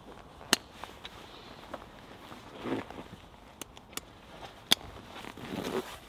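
Hands handling a rolled wool blanket strapped to a backpack: soft rustling of the wool and pack, with a few sharp clicks from the leather straps and metal buckles.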